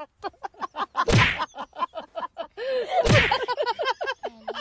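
Wire door of a plastic pet crate rattling and banging against the crate as a dog pushes at it: a fast run of clattering taps, with heavy bangs about a second in and again about three seconds in.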